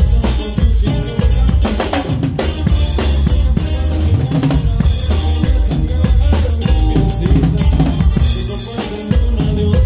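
Drum kit played live and heard up close from behind the kit: a steady kick-drum and snare beat, with the rest of the band playing along underneath.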